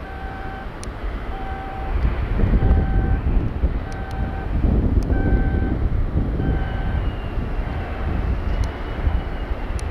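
A shipyard vehicle or crane warning beeper sounding half-second beeps about once every 1.25 seconds, over a low, steady rumble.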